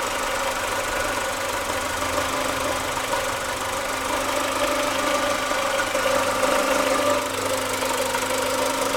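Chevrolet Lacetti 1.6 four-cylinder petrol engine running steadily, with the knocking noises the owner is recording it for.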